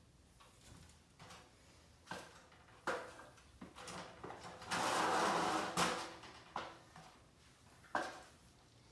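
Objects being handled: several short knocks and clatters, with a louder rough scraping or sliding sound lasting about a second near the middle.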